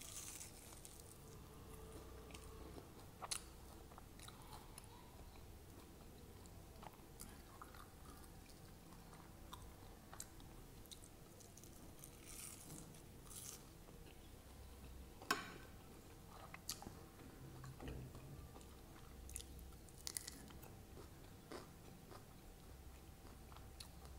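A person biting into and chewing crisp fried sabudana vada (sago fritters): soft chewing broken by scattered crunchy bites, the sharpest crunch about midway.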